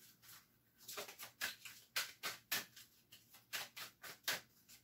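A deck of cards being shuffled by hand: after a quiet first second, a quick, irregular run of short papery slaps and snaps, about three to four a second.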